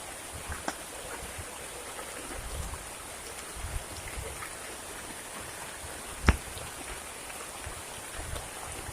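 Steady heavy rain falling, with scattered drop ticks and one sharp tap about six seconds in, the loudest moment.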